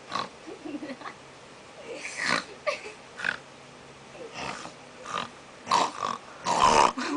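People making mock snoring and snorting noises through the nose and throat: a string of short snorts at irregular intervals, with a longer, louder one near the end.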